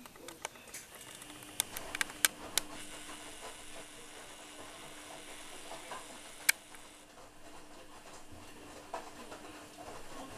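Faint handling noise from a hand-held camera: a cluster of sharp clicks and taps about two seconds in and another single click past the middle, over a low steady hum and hiss.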